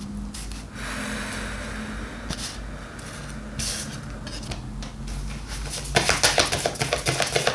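A deck of tarot or oracle cards being shuffled by hand: cards rubbing and sliding against each other, then a quick run of clicking card edges near the end.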